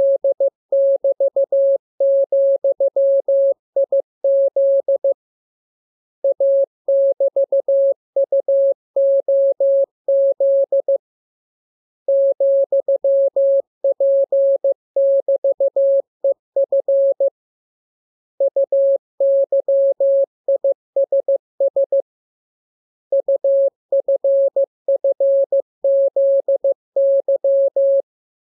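Morse code practice signal: a single steady tone keyed on and off in dots and dashes, sent as groups of characters with pauses of about a second between groups.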